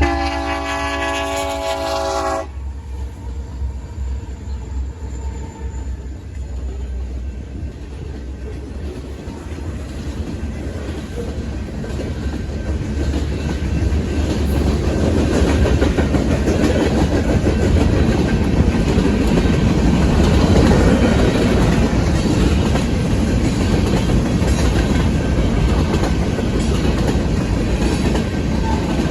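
An EMD SD70M diesel locomotive's air horn sounds a chord that cuts off about two seconds in. Then the train runs past: a deep diesel rumble and wheels clicking over the rail joints, growing louder partway through.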